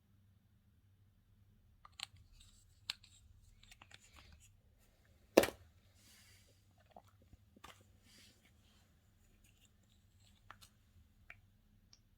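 Slime being handled and mixed: scattered small clicks and crackles, with one sharp knock about five seconds in.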